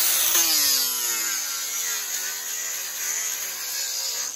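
Cordless DeWalt angle grinder running with its disc pressed into the edge of an oak slab, grinding off sapwood. The motor whine drops in pitch about half a second in as the disc takes the load, then wavers as the pressure changes.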